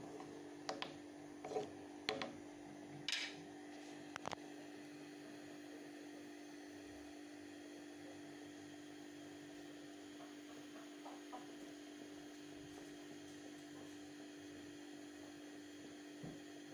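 Steady low hum, with a handful of short sharp clicks in the first four seconds.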